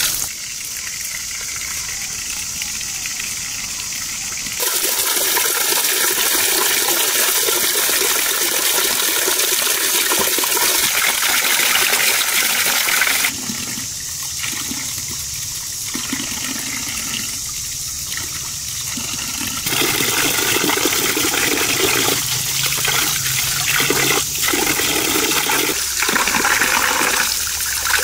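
Water pouring from a spout into a tiled basin and splashing around vegetables and fruit being washed by hand. The steady rush shifts in level and tone abruptly a few times.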